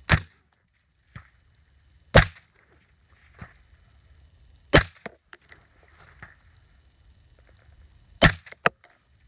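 Five rifle shots from an HK MR556 5.56 mm semi-automatic rifle fired in a string at multiple targets, unevenly spaced, the last two in quick succession near the end.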